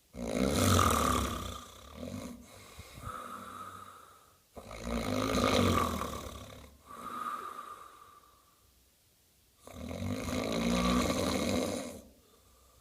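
Loud snoring: three long snores about five seconds apart, each loud at first and trailing into a softer second breath.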